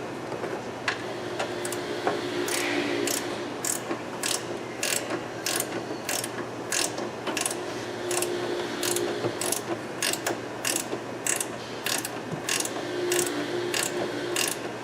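Hand ratchet wrench undoing a nut, its pawl clicking on each back-stroke in a steady rhythm of about three strokes every two seconds.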